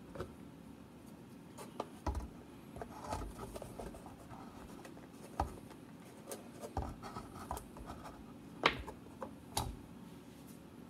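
Hands handling a clear plastic bottle and airline tubing on a wooden workbench: scattered light taps, clicks and rubbing, with two sharper clicks near the end.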